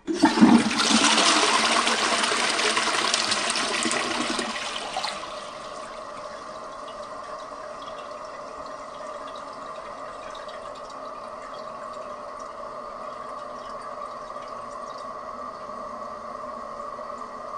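Toilet flushing: a loud rush of water that drops away about five seconds in. The tank then refills steadily with a thin, even whine from the fill valve.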